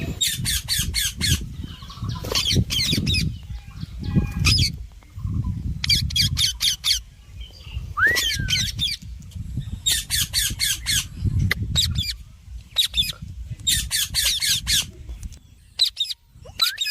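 Rose-ringed (Indian ringneck) parakeet squawking: runs of rapid harsh calls, about six a second, repeated in bursts, with a single rising whistle about eight seconds in and again near the end. A low rumble sits underneath.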